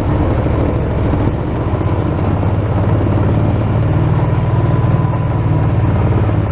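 Four-wheeler engine running steadily as it drives along.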